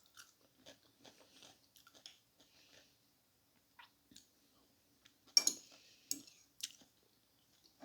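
Close-miked chewing with soft, wet mouth clicks, with a few louder sharp clicks a little past halfway.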